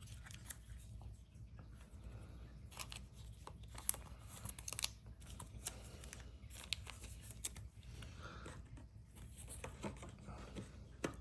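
Trading cards and their packaging being handled: scattered short clicks, scrapes and crinkles, the sharpest about four to five seconds in and again near the end.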